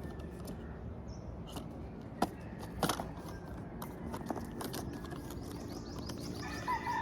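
A few sharp clicks and taps as a small LED Lenser penlight is handled and opened, with a chicken calling near the end.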